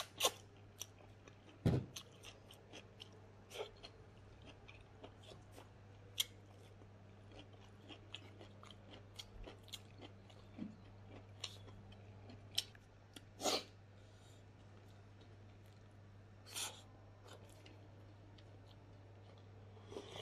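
Close-miked chewing and biting of smoked pork leg and its spicy side dish: wet mouth clicks and smacks, with a handful of louder bites or crunches scattered through. A steady low hum runs underneath.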